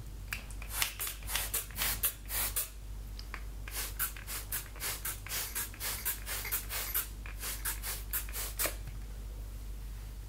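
Plastic trigger spray bottle spritzing water onto wet hair: many quick, short sprays in a rapid, irregular series that stops near the end.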